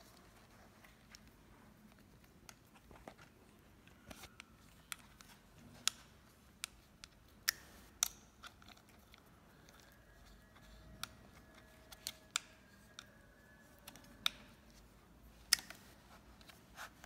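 Small irregular clicks and taps of an Allen key and mounting bolts against the metal and plastic bracket of an e-bike handlebar display as the bolts are put in by hand.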